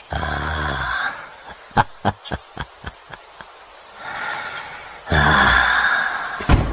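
An old man's breathy laughter: a long exhaled laugh at the start, a run of short chuckles, then a louder breathy laugh about five seconds in.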